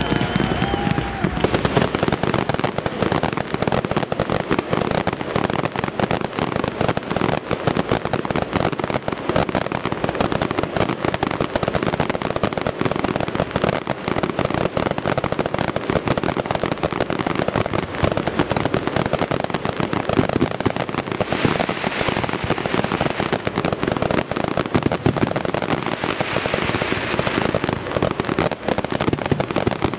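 Professional fireworks display going off in a dense, unbroken barrage of rapid bangs and crackling, with the crackle growing brighter about two-thirds through and again near the end.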